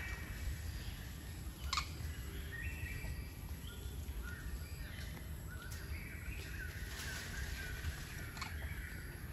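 Forest ambience: scattered short, high chirping calls over a steady low rumble, with a sharp click about two seconds in.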